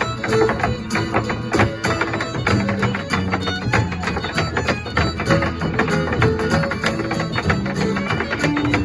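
Irish fiddle and acoustic guitar playing a hornpipe together: the fiddle carries the melody over steady rhythmic guitar strumming.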